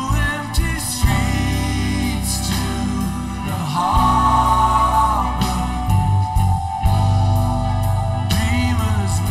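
A slow rock song played live by a band: electric guitar, bass and drums under a sung lead, with backing singers holding harmony notes about four to five seconds in.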